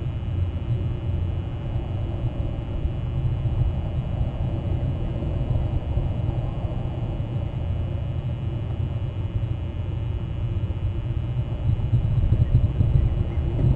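Steady low rumble with a faint constant hum above it, with no distinct bird calls.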